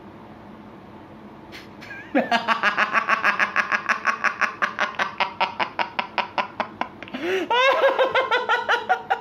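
A man breaks into loud, hearty laughter about two seconds in: a long, rapid run of high-pitched 'ha-ha' pulses, with a squealing rise in pitch near the end.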